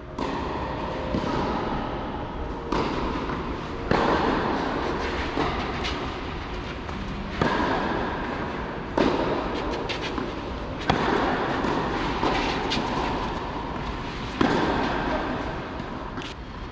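Tennis ball struck back and forth with rackets in a rally, about ten sharp hits roughly every one and a half seconds. Each hit echoes on in the large covered hall, over a steady background noise.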